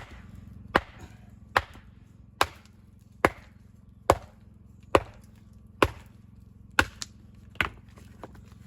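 A hammer striking stone ten times at an even pace, a little more than one blow a second, each a sharp crack: a building stone being dressed, its oversized tail knocked back.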